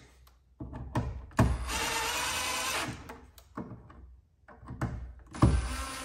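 Cordless impact driver running twice in short bursts, about a second and a half each, driving a switch's mounting screws into a plastic electrical box, with a few light knocks in between.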